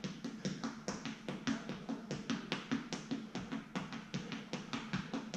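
Quick light footsteps tapping on a gym floor in a fast, slightly uneven patter, several taps a second, from bouncing boxing footwork on the balls of the feet. Background music plays under it.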